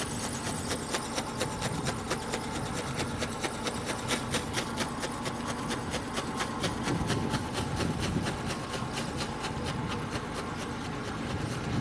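Wind rumbling on the microphone, swelling in gusts, with a rapid, even ticking throughout.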